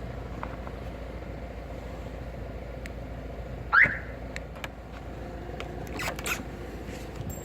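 Car alarm siren on a VAZ-2107 giving one short chirp that rises in pitch as the key fob is pressed, then two sharp clacks about two seconds later as the locks release.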